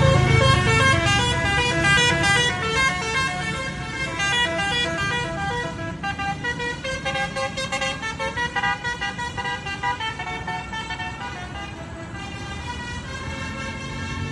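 A tour bus's Basuri telolet horn, a multi-tone musical air horn, playing its melody as a long run of quick toots stepping up and down in pitch, several tones sounding together. It fades somewhat in the later part, with a low engine rumble under it near the start and end.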